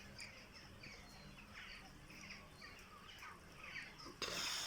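Many birds calling and chirping at once, short calls overlapping. Near the end comes a brief, louder rush of noise.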